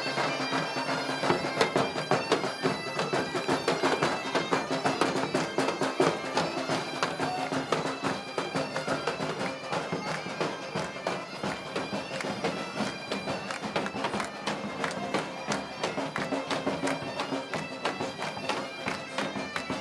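Bagpipe playing a folk tune over its steady drone.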